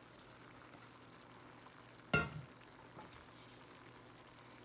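A faint, even sizzle of crawfish tails cooking in a pan, with one sharp clank of a utensil striking cookware about two seconds in and a light tap a second later, as a cheese mixture is scraped out of a pot into the pan.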